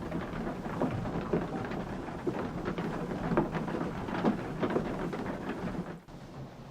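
Water splashing and pouring, with many irregular knocks and clatters through it, as from a water wheel turning at a water-powered sawmill. It drops suddenly to a quieter steady rush about six seconds in.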